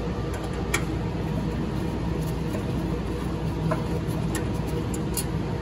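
Steady hum of equipment-room cooling and air handling, with a few light clicks as a hand works the fan tray's power plug loose.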